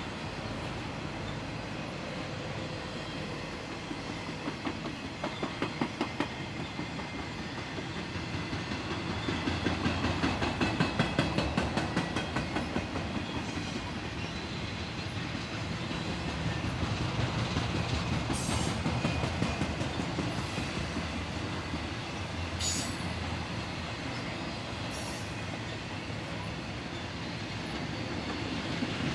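Norfolk Southern piggyback freight cars carrying highway trailers rolling past: steady rolling rumble with runs of quick rhythmic clicks as the wheels cross rail joints. A few short, high wheel squeals come in the second half.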